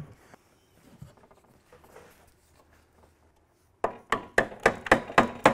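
Hammer striking a screwdriver in quick, light, ringing taps, about four or five a second, from about four seconds in. They drive the sheet-steel case clamps off the edge of a 1962–64 Ford Galaxie heater box. Before that there is only faint handling rustle.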